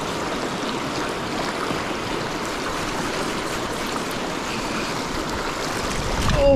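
Fast river current rushing steadily, with a short low bump on the microphone near the end.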